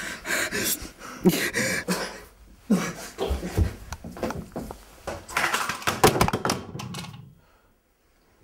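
A teenage boy crying out, gasping and sobbing in distress, strained wordless cries and heavy breaths with a couple of dull low thumps about three seconds in, then going quiet after about seven seconds.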